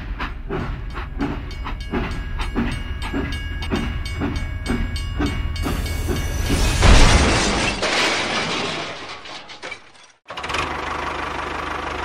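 Toy steam locomotive sound: a steady rhythmic chuffing at about two to three beats a second with a held whistle-like tone over it. About six and a half seconds in it gives way to a loud rushing hiss that fades out, and after a brief cut a steady hiss returns.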